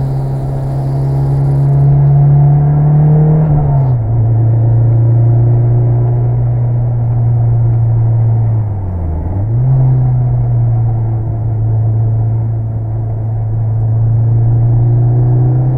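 Mitsubishi Lancer Evolution VI Tommi Makinen's turbocharged four-cylinder engine running under steady load. Its note drops slightly about four seconds in, then dips briefly and picks back up about halfway through.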